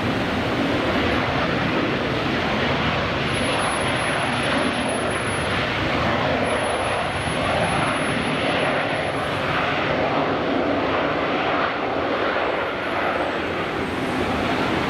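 Boeing 737-800's CFM56 jet engines on the landing roll, a loud, steady rush of engine noise. A faint high whine comes in twice in the middle.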